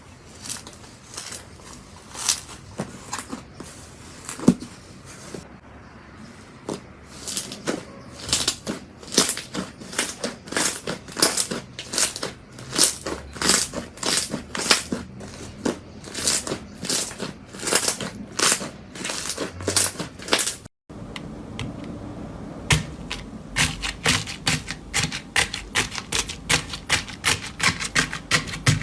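Slime being squeezed and poked, giving a long series of crisp clicks and pops from trapped air. After a brief dropout about 21 seconds in, the clicking comes faster and denser.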